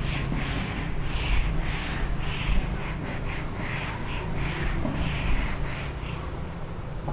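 Handheld whiteboard eraser rubbing across a whiteboard in quick back-and-forth strokes, about two a second.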